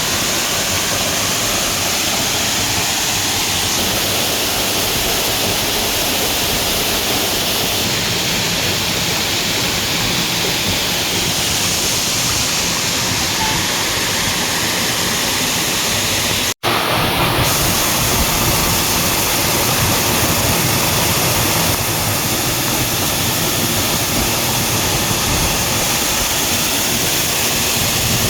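Waterfall: water pouring down and splashing onto the ground in a steady, loud rush. It cuts out for a split second once, about two-thirds of the way in.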